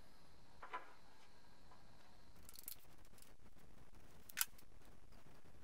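A filler spreader scraping body filler onto the welded steel wheel arch of a Mercedes W123 front wing: a few short scrapes over faint room tone, the sharpest one about four and a half seconds in.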